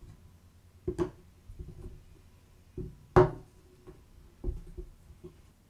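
A pen display tablet being fitted onto its stand on a desk: a handful of hard knocks and clicks as tablet, stand and desk meet, the loudest about three seconds in.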